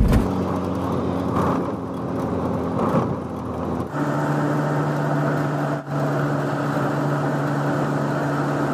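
Eicher truck's diesel engine running steadily with a low, even hum; its note changes about four seconds in and then holds steady again.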